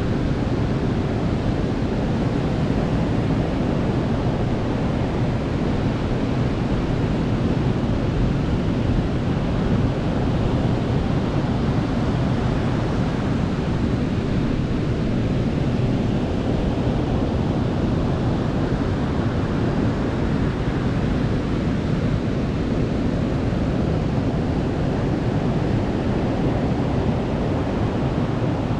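Ocean waves breaking and washing on a beach: a steady, even rush of surf with no distinct single crashes, the sound weighted toward the low end.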